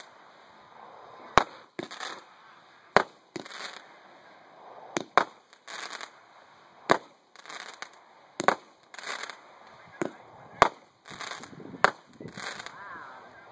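Consumer firework cake firing shot after shot, about one every one and a half seconds. Each shot is a sharp bang followed by a short noisy burst as the small aerial shell breaks.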